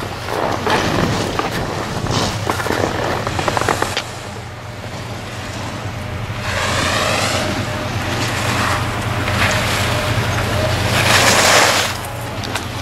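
Skis scraping and carving on packed snow, loudest near the end as a young skier turns past close by, with wind noise on the microphone throughout.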